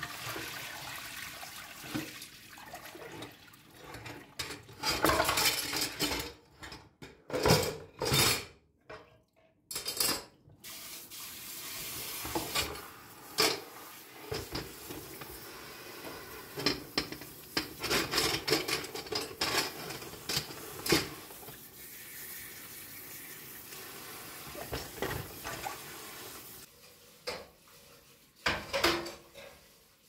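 Kitchen tap water running and splashing into a sink while gas-stove pan-support grates clatter and knock against a plastic basin as they are rinsed. The knocks are densest in the first third, and water runs steadily through most of the latter part.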